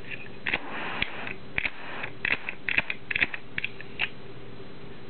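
Zippo Blue butane lighter's metal lid clicking open and snapping shut: a series of irregular sharp metallic clicks, the lid made to give the classic Zippo click.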